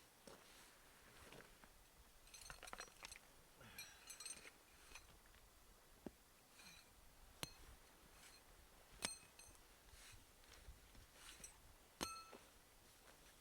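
Faint clinks of metal utensils against camp cookware: soft rustling and light tapping, then three or four sharp ringing clinks spaced a second or more apart in the second half.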